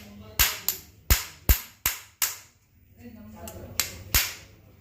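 A series of sharp taps or knocks, about eight, irregularly spaced, like a hand tool striking hard metal parts. There is a short pause in the middle.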